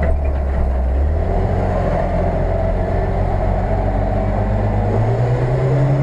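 UAZ-469 engine running under load, heard from inside the cabin while driving off-road; the revs rise a little about five seconds in.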